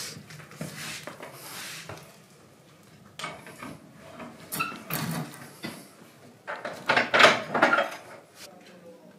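Intermittent clatter and scraping as a gloved hand handles a foil-wrapped dish on the metal grate inside an open cast-iron wood stove. The loudest burst comes about seven seconds in.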